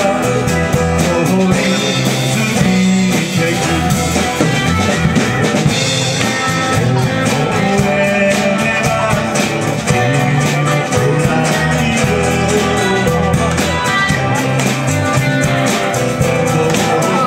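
A live band playing a folk-rock song: acoustic guitar, electric bass, keyboard and drum kit, with voices singing over them.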